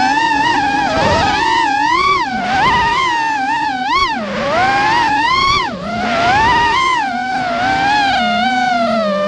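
Racing quadcopter's brushless motors and propellers whining, the pitch rising and falling constantly with the throttle, with short dips about four and six seconds in.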